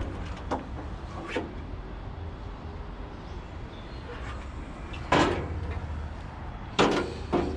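Handling noises: a couple of light knocks, then two louder short clattering bangs about five and seven seconds in, over a steady low rumble.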